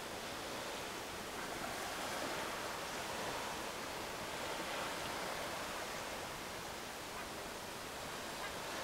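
Steady, even rushing noise of wind and open sea water, with no distinct splashes standing out.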